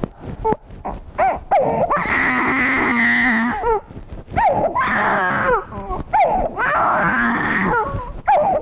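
Infant crying hard in long wails, broken by short gasps and choppy breaks. Her cry is interrupted by rhythmic pressure on her ribs during contact-breathing chest physiotherapy for cystic fibrosis, which forces out each exhalation to bring up mucus.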